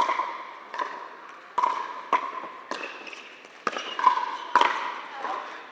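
Pickleball rally: sharp pops of paddles striking the hollow plastic ball, and of the ball bouncing on the court, about one every half second to a second. Each pop echoes briefly in a large indoor hall.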